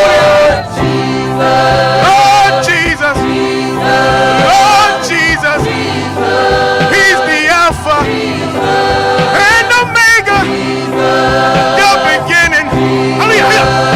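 Gospel choir singing with accompaniment: sustained chords under a lead voice with vibrato.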